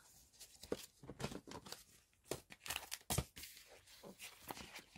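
Paper and cardstock album packaging being handled: irregular rustling with light taps and scrapes of stiff card.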